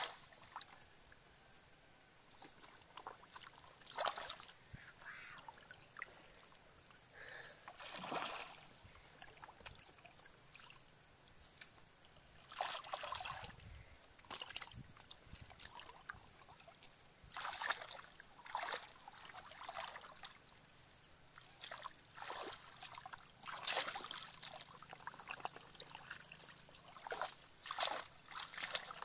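Shallow muddy water splashing and sloshing as hands and legs stir it, in irregular bursts every few seconds.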